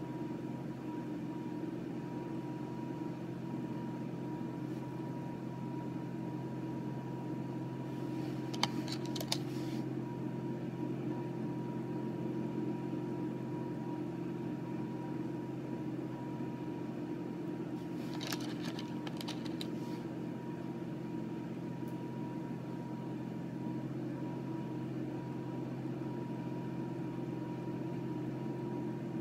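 Steady low background hum with a thin steady tone in it, like a fan or motor running. Twice, about nine seconds in and again around eighteen to twenty seconds in, there is a brief cluster of light clicks as small rough opal stones are handled and knock together.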